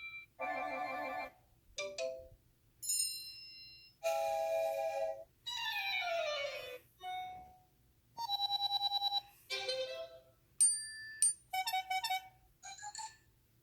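A run of about ten short iPhone alert tones played one after another: brief chimes and jingles, one a falling sweep and one a fast pulsing beep.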